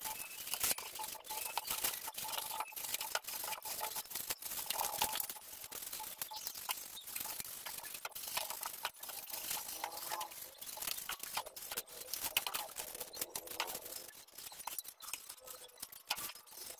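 Utility knife blade cutting through a styrofoam sign board, a dense steady run of small crackles as the blade is drawn through the foam.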